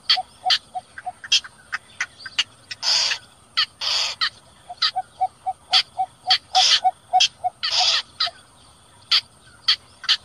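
Recorded calls of 'cò lép' and 'cò lửa' (cinnamon bittern) played as a lure for night bird-netting. Runs of evenly spaced low hoots, about three a second, are mixed with short sharp calls and several longer harsh calls.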